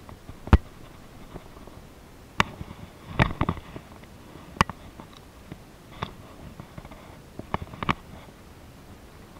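Scattered sharp clicks and knocks from handling a baitcasting rod and reel, about seven in all, the loudest about half a second in and a short cluster around three seconds in.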